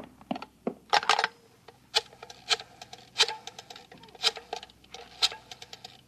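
Rotary telephone being dialled: a clatter as the receiver is lifted about a second in, then the dial is pulled round and let go about six times, each pull followed by a quick run of clicks as it spins back.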